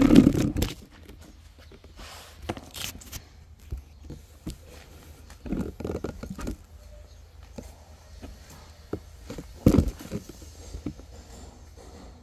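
Footsteps on a concrete yard with scattered knocks and rustles, starting with a loud low rustle and with a sharp thump a little before the end.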